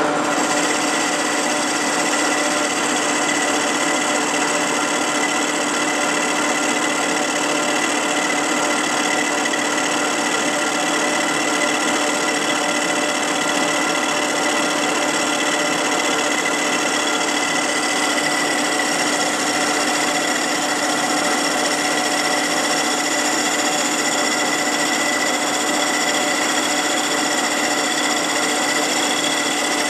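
Metal lathe running steadily with the backing plate spinning on the spindle while its taper is machined: a constant mechanical whirr with a steady whine, unchanging throughout.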